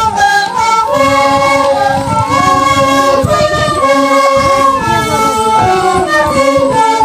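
A group singing in high, held notes, phrase after phrase, with irregular low thumps underneath.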